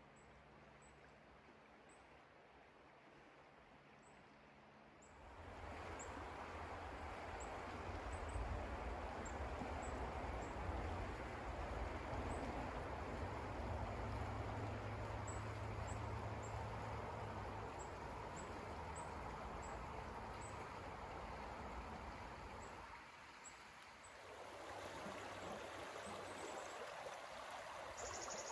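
A stream running steadily. The rushing water starts abruptly about five seconds in, after a quiet stretch, dips briefly near the end and comes back. Faint high bird chirps come and go throughout.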